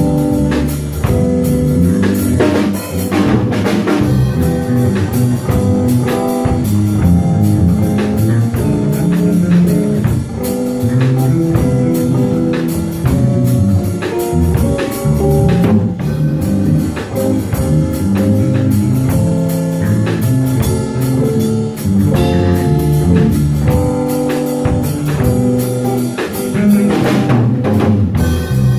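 A small jazz combo playing live: drum kit, bass and piano with horns, the music running on without a break.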